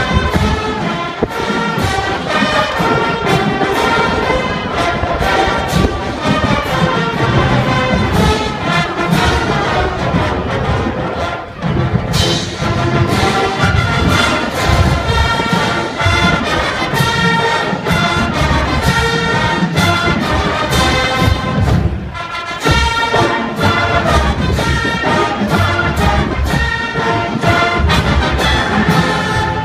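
Marching band playing: massed brass (sousaphones, trumpets, trombones) over drums. The music is continuous, with short breaks between phrases about twelve and twenty-two seconds in.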